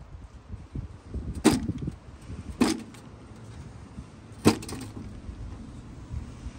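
Three sharp clacks as a Nitto Kohki Atra Ace QA-4000 magnetic drill is handled, the first and last the loudest. A low steady hum sets in during the second half.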